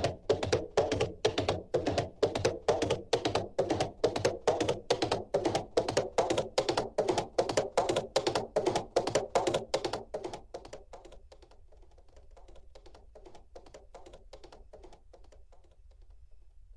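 A tapping sound effect built into a Casio CT-X9000 keyboard: even, sharp taps about three a second. They fade after about ten seconds and stay faint to the end.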